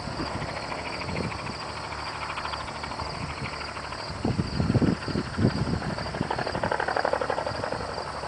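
Distant gyroplane engine and propeller buzzing steadily, with insects chirping in a fast, regular pulse. A few low bumps about halfway through, like wind on the microphone.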